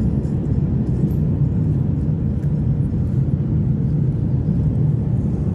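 Steady low rumble of a car travelling at motorway speed, heard from inside the cabin: road and tyre noise with the engine underneath.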